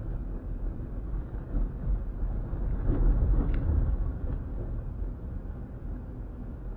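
Low rumble of a car's engine and tyres on the road, heard inside the cabin, swelling louder about halfway through.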